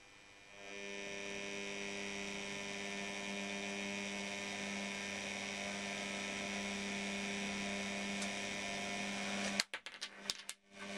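Electric motor drive of a demonstration turntable running with a steady hum that comes up about half a second in. The hum breaks off near the end with a few sharp clicks.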